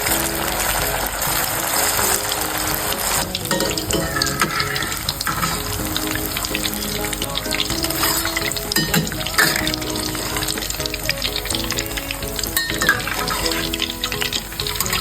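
Tofu nuggets sizzling and crackling as they fry in oil, over background music. The sizzle is densest in the first few seconds.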